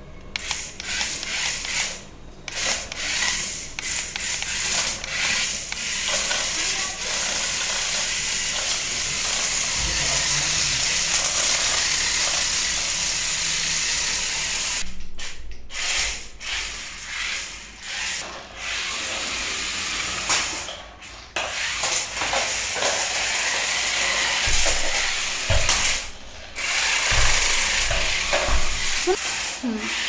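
Two toy remote-control stunt cars driving on a tiled floor: their small electric motors whir steadily and their wheels scrub on the tiles, cutting out briefly a few times when the cars stop, with a few knocks near the end.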